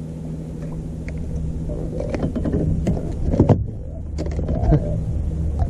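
Steady low hum of a boat motor, with scattered clicks and knocks from a blue catfish being unhooked and handled at the bow, mostly in the second half.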